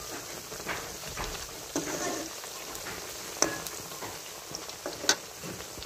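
Cornflour-coated round potato slices deep-frying in hot oil in a karahi, sizzling steadily as a metal slotted spoon stirs them. Two sharp clicks stand out in the second half.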